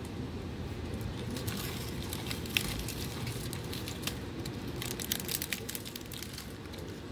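Steady low rumble of an Amtrak passenger coach rolling along the track, heard from inside the car, with scattered light crackling clicks.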